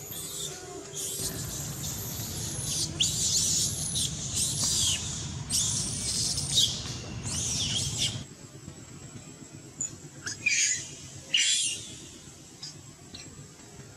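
Baby macaque screaming: a run of shrill, wavering cries through the first half, then two shorter cries near the end.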